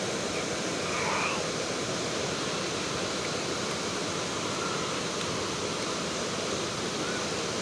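Waterfall rushing steadily, with a brief faint voice about a second in.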